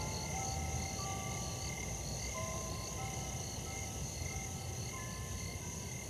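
Soft background music: a slow melody of held notes, over a steady high trill with short chirps about twice a second, like crickets.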